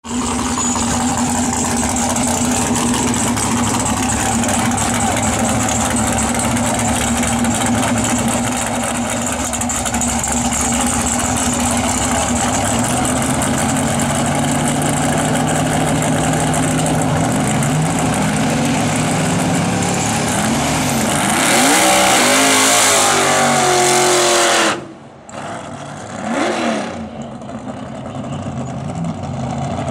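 Drag car's engine running at the start line: a steady note at first, then revs rising and falling in repeated blips, held high and loud for a few seconds before it drops away abruptly about 25 s in. One more rev rises and falls, fainter, shortly after.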